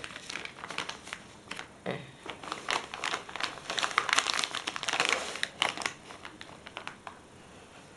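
Clear plastic bag of dog treat sticks crinkling as it is handled, a run of sharp crackles that is loudest about four to five seconds in and fades near the end.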